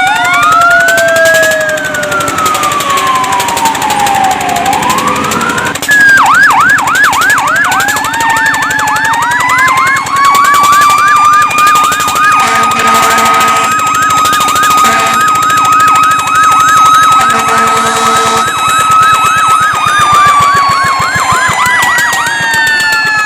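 Fire truck sirens sounding, more than one siren tone overlapping: a slow rising and falling wail that switches about six seconds in to a fast yelp of three to four sweeps a second. A horn blasts twice over the top, around the middle and again a few seconds later.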